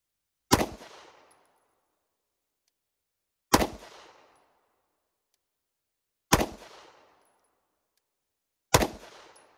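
Four single shots from a 9mm pistol, slow aimed fire spaced about two and a half to three seconds apart, each shot dying away over about a second.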